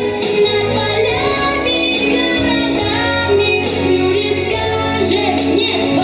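A high voice singing a song with instrumental accompaniment, holding long notes with vibrato, over a regular light percussion beat.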